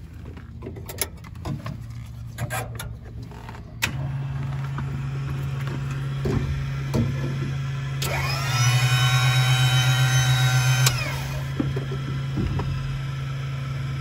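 Cockpit switch clicks, then a steady low electrical hum once power comes on. About eight seconds in, a small electric motor whines up to speed, runs for about three seconds and cuts off suddenly.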